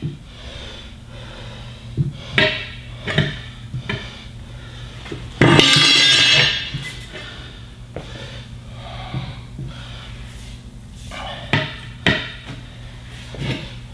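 Steel tire irons clanking and scraping against a truck wheel rim as a tire bead is levered over it by hand, with scattered sharp knocks and one longer, louder scrape about five and a half seconds in.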